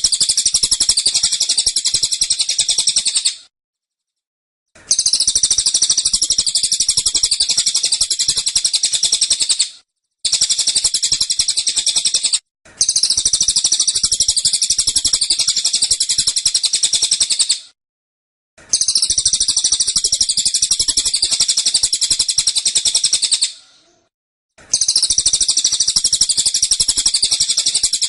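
Cililin songbird singing its rapid 'tembakan' song: dense, fast-repeated high notes poured out in phrases a few seconds long, with short abrupt breaks between them.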